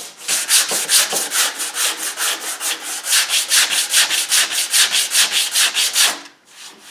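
Hand sanding with 80-grit paper on a flexible sanding block over cured 3M EZ Sand flexible parts repair material on an Endura bumper. Quick back-and-forth strokes, about five a second, stop about six seconds in.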